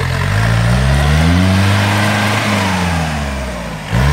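Modified Willys-style jeep's diesel engine revving hard under load as it climbs loose dirt: the revs climb and hold, then ease off, and near the end jump back up loud.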